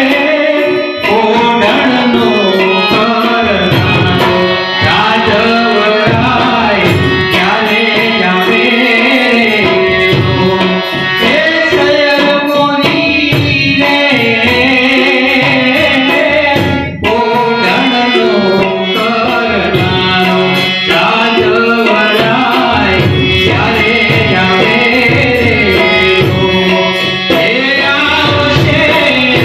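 A Gujarati folk song (lokgit) performed live: a man singing into a microphone, accompanied by harmonium and tabla.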